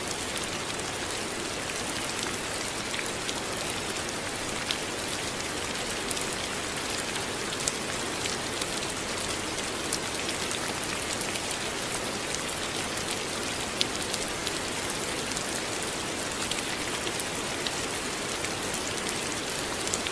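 Steady rain falling, an even hiss with scattered sharp drops striking a surface.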